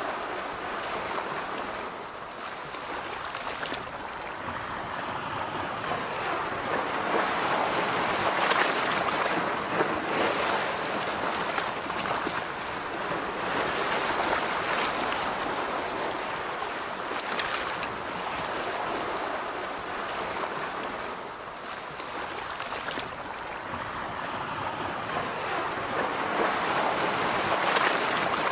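Ocean surf washing onto a beach, a steady rush that swells and eases as waves come in every several seconds.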